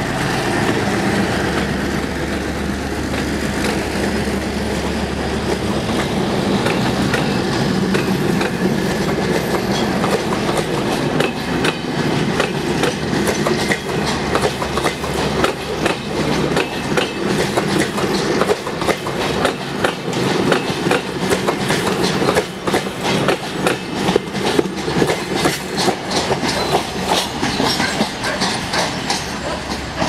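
EMD GR12 diesel-electric locomotive passing close as it pulls away, its engine running steadily, then a string of passenger coaches rolling by with their wheels clattering over rail joints and switches. The clatter grows denser and louder in the second half.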